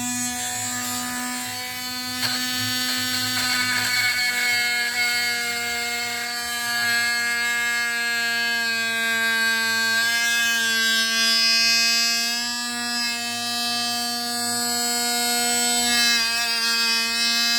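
Off-brand oscillating multi-tool running on a DeWalt 20V battery, a steady high-pitched buzz as the blade is pressed into wood. Its pitch wavers slightly a couple of times under the load.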